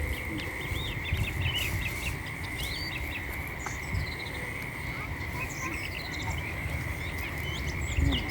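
An insect's steady high drone, with many short bird chirps and whistles over it, above a low rumble.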